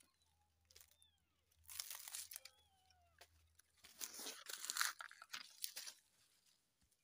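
Dry leaves and litter crunching and crackling underfoot, in a short burst about two seconds in and a longer, louder spell from about four to six seconds. A few faint, thin gliding calls sound in the first half.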